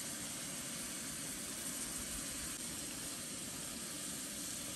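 Steady hiss from a camp stove with a pan of food cooking on it.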